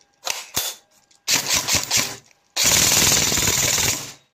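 Automatic gunfire: two single shots, a short burst of about four rounds, then a longer full-auto burst of about a second and a half that cuts off suddenly.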